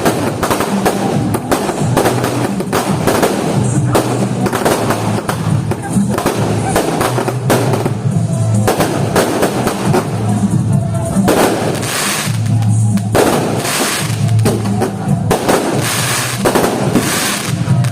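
Fireworks bursting and crackling in rapid, continuous succession, with music playing underneath.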